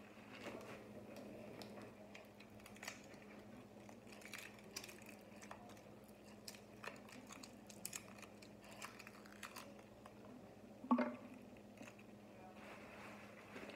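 Faint scattered clicks and rustles of someone moving about and handling things, with one louder knock about eleven seconds in, over a steady low hum.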